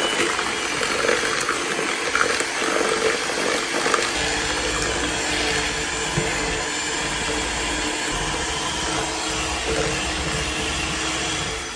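Electric hand mixer running steadily on medium speed, its twin beaters creaming butter and caster sugar in a plastic bowl, with occasional knocks as the beaters touch the bowl.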